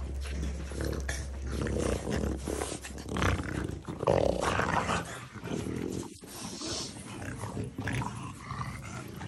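Dogs growling as they play-fight and wrestle, in irregular rough bouts, loudest about four seconds in.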